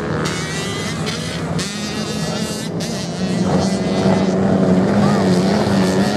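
Several dirt-bike motorcycles racing on sand, their engines revving and running together. They get louder about three and a half seconds in as the bikes corner toward the listener.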